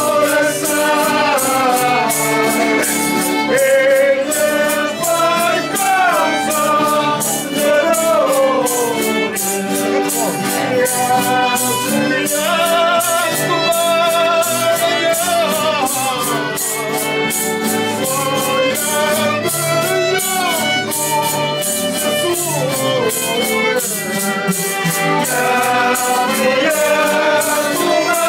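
A group of voices singing a traditional Azorean folk song together, with instrumental accompaniment and a steady percussive beat.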